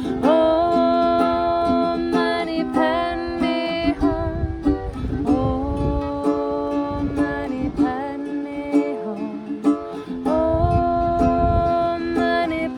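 Ukulele strumming under long, held, wordless sung notes that slide up into pitch: a healing-song outro.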